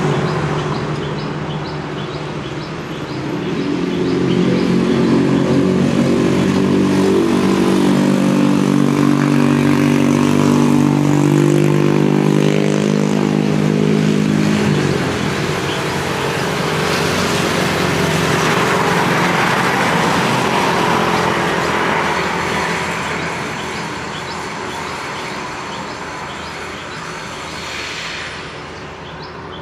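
Road traffic of cars and motorbikes. A vehicle's engine runs steadily close by for about ten seconds, then stops being heard. Another vehicle passes with a rush of engine and tyre noise, and the traffic fades toward the end, with faint repeated high chirps in the background.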